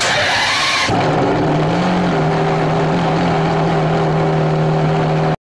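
Ferrari Enzo's V12 engine being started: a loud burst for about a second as it catches, then it settles into a steady idle. The sound cuts off suddenly near the end.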